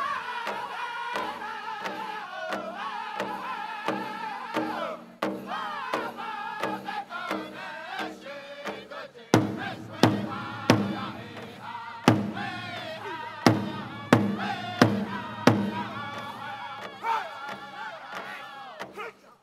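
Powwow drum group singing a men's prairie chicken dance song: high-pitched men's voices in unison over a steady beat on a shared bass drum. About nine seconds in, the drumming turns to loud, accented strikes roughly every second and a half, then falls back to the steady beat.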